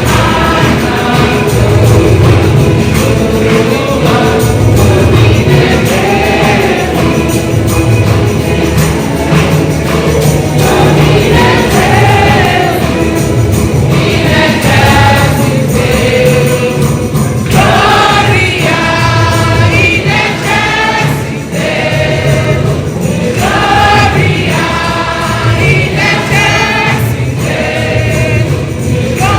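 A choir singing gospel music with instrumental accompaniment.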